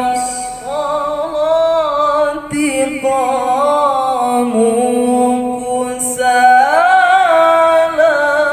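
Young male qari's voice chanting Qur'anic recitation (tilawah) into a handheld microphone in the style of Pakistani haflah reciters. He holds long notes joined by ornamented rises and falls in pitch, with a climbing phrase about three-quarters of the way through.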